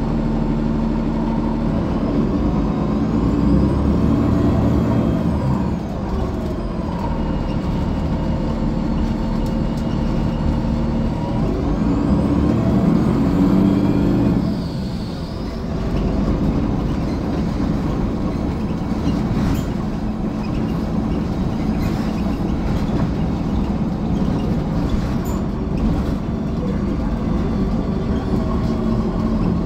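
The Cummins ISL9 inline-six diesel of a 2015 Gillig Low Floor bus idling steadily at a stop. Its note swells a little twice and dips briefly about halfway through.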